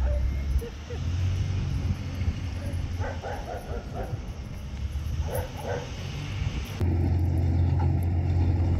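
Low wind rumble on the microphone, with a dog giving short barks twice, about three and five seconds in.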